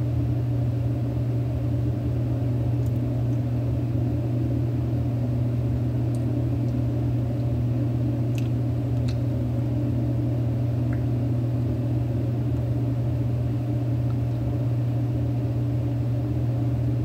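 A steady, unchanging low mechanical hum, with a couple of faint ticks about eight and nine seconds in.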